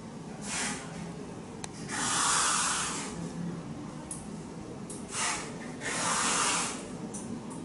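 Four short, hissy puffs of breath close to the microphone, each lasting under a second, with a couple of faint clicks between them.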